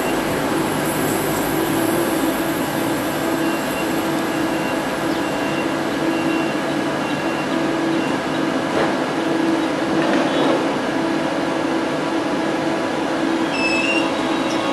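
Siemens Desiro ET425M electric train standing at the platform, its onboard equipment humming steadily. Near the end new whining tones come in as it starts to depart.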